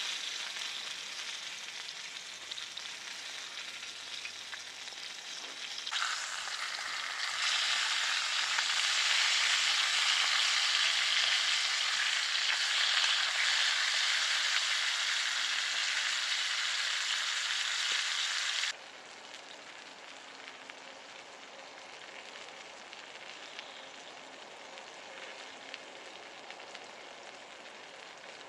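Food sizzling and frying in a pan over a campfire, a steady hiss that grows louder about six seconds in and then drops suddenly to a quieter sizzle about two-thirds of the way through.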